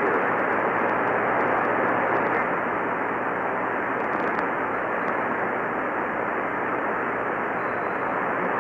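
Steady radio static from a radio receiver: an even hiss with no voice on the channel.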